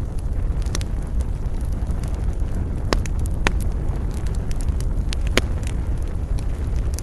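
Campfire burning: scattered sharp crackles and pops of burning wood over a steady low rumble, with three louder pops about three, three and a half and five and a half seconds in.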